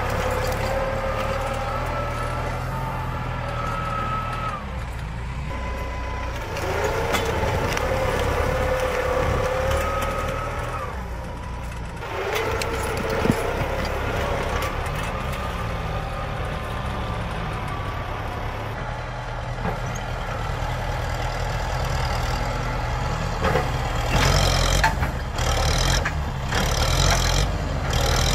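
Tractor diesel engine working under load as it drags a mounted disc plough through the soil, its pitch dropping and picking up again a few times. Near the end comes a quick run of sharp cracks and snaps.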